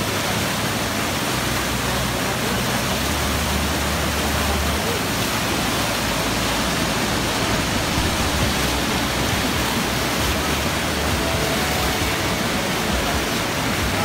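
Waterfall cascading over rock slabs: a steady, loud rush of water.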